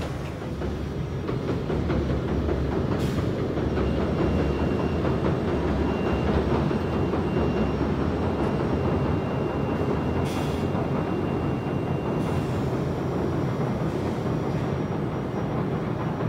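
Kintetsu 16000 series limited express train crossing a steel truss bridge: a steady low rumble that swells about a second in and eases slightly near the end.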